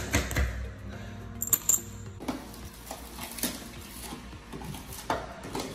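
Hardened limescale being scraped and chipped by hand off a hot tub's acrylic shell: irregular short scrapes and clicks as the hard scale comes away.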